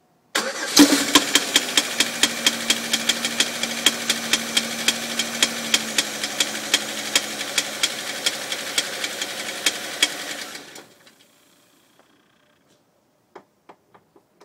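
2003 Pontiac Grand Am's 3400 pushrod V6 starting up and running with a sharp, regular slapping knock about three times a second, then shut off after about ten seconds. The noise appeared after a head gasket change; the owner hopes nothing fell into a cylinder when the head went on.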